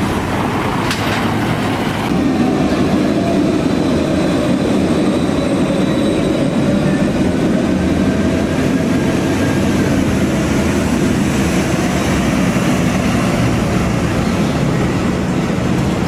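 Steady city street traffic, with a heavy vehicle's engine running and a faint high whine. The sound changes character about two seconds in.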